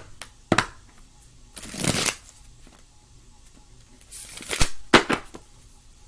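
A deck of oracle cards being shuffled by hand: two longer rustling shuffles, about a second and a half in and about four seconds in, with a few sharp clicks of the cards between and after them.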